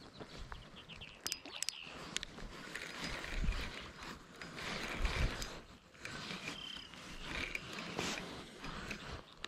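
Fishing reel cranked in bursts while a hooked bass is played in, with clicks and knocks from handling the rod.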